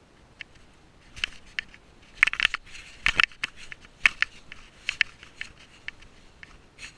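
Stretched plastic wrap of hay bales crackling and crinkling under a cat's paws and claws as it moves across the bales: irregular sharp clicks and crackles, thickest and loudest between about two and three and a half seconds in.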